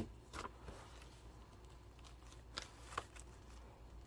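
Paper bills being handled and sorted into a wallet's sections: a few brief rustles and light taps, about four in all.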